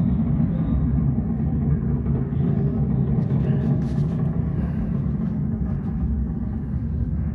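Recorded rumble of a Saturn V rocket launch, played over the exhibit's loudspeakers as a steady, deep roar that eases slightly near the end.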